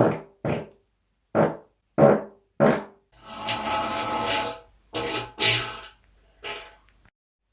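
A run of short human farts, one after another with brief silences between, and one longer, drawn-out fart of about a second and a half near the middle.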